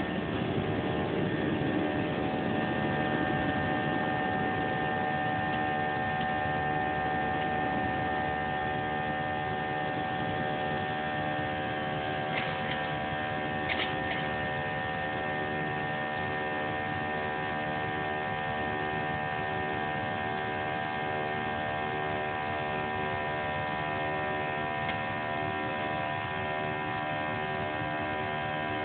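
Airliner's jet engines at takeoff power heard inside the cabin: a steady drone made of many held tones that beat against each other. A heavier rumble from the runway roll eases after a few seconds as the plane lifts off, and two faint clicks come about halfway.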